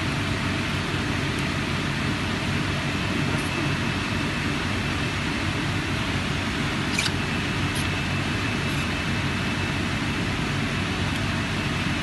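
Steady mechanical hum with an even low drone and a faint high whine, and a faint click about seven seconds in.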